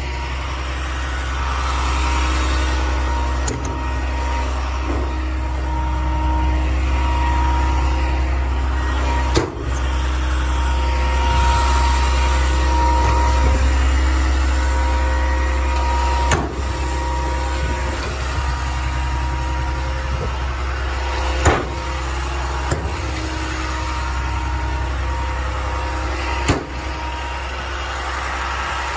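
International DT466 7.6-litre inline-six diesel of a 2006 International 7300 bucket truck running steadily, with a thin steady whine over it. Several short sharp knocks come at intervals of a few seconds.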